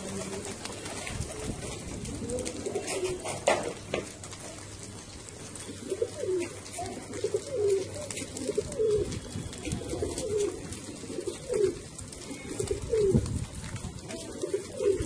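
A flock of domestic pigeons cooing, many overlapping calls that dip in pitch, with a couple of sharp taps about three to four seconds in.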